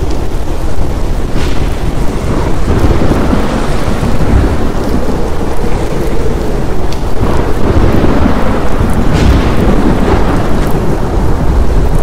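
Thunderstorm: a continuous low rumble of rolling thunder over steady heavy rain, with a few sharp cracks, one about a second and a half in and two more in the second half.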